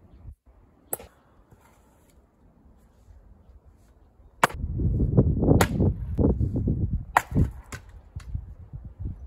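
A splitting maul strikes a round of firewood with a sharp crack about four and a half seconds in, followed by several more knocks over the next three seconds over a low rumble, as the wood splits and the pieces fall.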